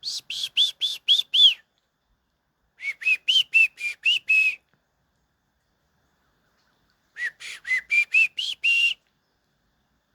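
Three runs of quick, arched whistled notes, six or seven notes to a run at about four a second, the runs a few seconds apart.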